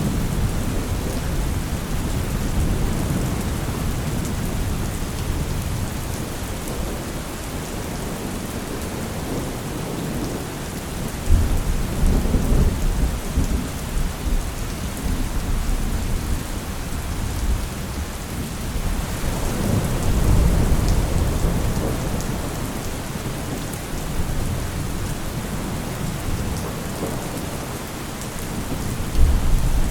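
Steady rain with rolling thunder: low rumbles swell up about a third of the way in, again past the middle, and once more near the end, the first one starting suddenly.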